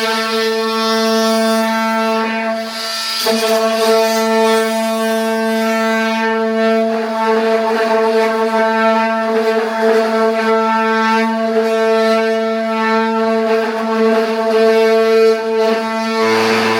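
An electric power tool motor spinning up, running at one steady pitch as a loud whine for about seventeen seconds, then winding down and stopping at the end.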